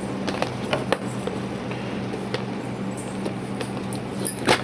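Light, scattered clicks and rustles of a boxed LED video light and its packaging being handled and opened, over a steady low hum; the handling gets louder near the end.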